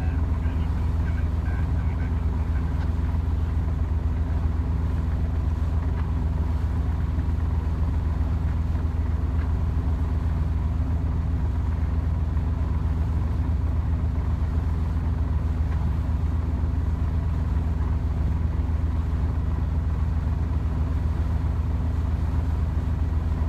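Sailing yacht's inboard engine running steadily with the boat under way at about 7 knots: a loud, even low-pitched sound with a faint steady higher tone over it.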